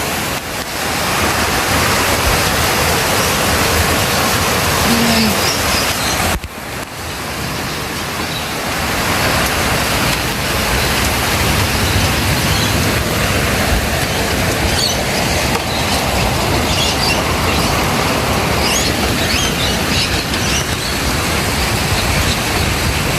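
Heavy rain mixed with hail pouring down, a dense steady hiss with a few faint ticks of hailstones, briefly dipping about six seconds in.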